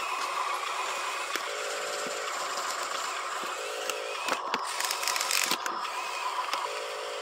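RC dump truck's small electric drive motor and gearbox whining over a steady background hum, buzzing in three short spurts as the throttle is applied. There are scattered clicks and a brief rattling scrape about halfway through as it rolls over the dirt.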